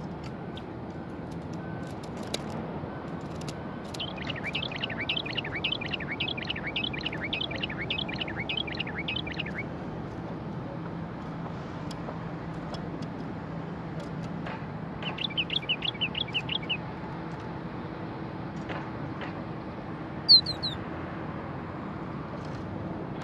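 Common bulbul calling: a long run of quick repeated notes lasting about five seconds, then a shorter run of about a dozen notes, and a single sharp loud note near the end. A faint steady low hum runs underneath.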